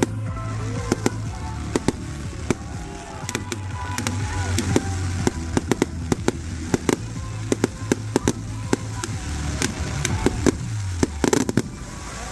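Fireworks going off in a rapid, irregular series of sharp bangs and cracks, with a dense cluster near the end, over background music.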